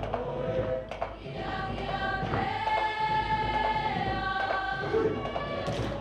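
A large group of Cook Islands performers singing a song together in chorus; about two seconds in, the voices hold one long note for nearly three seconds.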